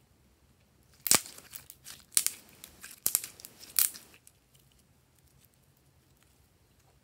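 Blue glitter slime stretched and pulled by hand, crackling and tearing in a few sharp bursts over about three seconds, then going quiet.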